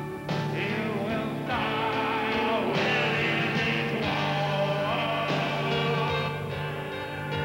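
Rock music with guitar and a sung vocal line over a sustained low note.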